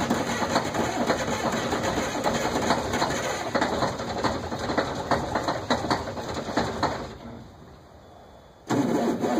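Semi tractor's diesel engine running roughly just after a cold start, an uneven clattering that puffs dark exhaust smoke. It fades away about seven seconds in and comes back abruptly about a second and a half later.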